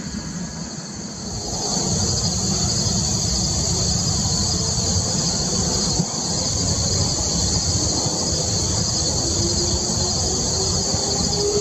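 Insects chirping in a loud, fast-pulsing high-pitched chorus over the low rumble of an approaching diesel freight train. A faint rising tone comes in near the end.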